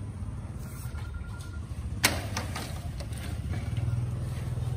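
Small motorcycle engine idling steadily with a low, even pulse. There is one sharp clack of plastic crates about two seconds in, followed by a few lighter knocks.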